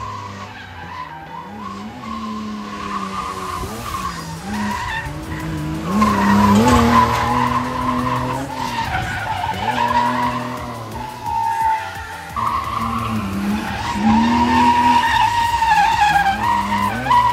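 Nissan R31 Skyline drifting: its straight-six engine revs hard, holding high revs with repeated rises and dips in pitch, while the rear tyres squeal and skid on the asphalt. It is loudest about six seconds in and again over the last few seconds.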